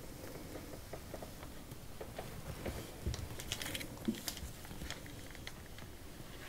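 Faint rustling and soft clicks of a plastic pouch of cake cream squeezed by hand as the cream is piped, with a few sharper ticks about three to four seconds in.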